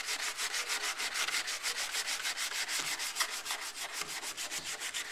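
Sandpaper rubbed by hand, without a block, over cured fiberglass sealing a welded seam on a steel car door. It makes a steady, scratchy sound of quick, even back-and-forth strokes, several a second.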